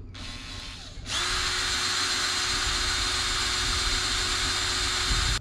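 Cordless drill boring out the old locking screws set into the thread of a stainless steel rudder stock. A lighter start for about a second, then the bit bites and the drill runs loud and steady with an even whine, stopping abruptly.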